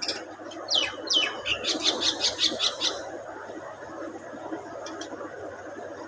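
Budgerigar calls: two falling chirps about a second in, then a quick run of sharp repeated chirps lasting about a second and a half, over a steady low background noise.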